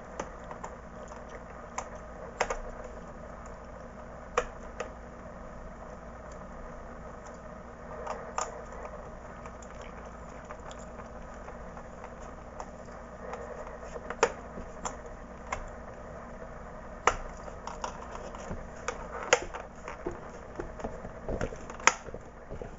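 Irregular sharp plastic clicks and taps of a laptop's access cover being fitted back into place and handled, more frequent in the second half, over a steady low hum.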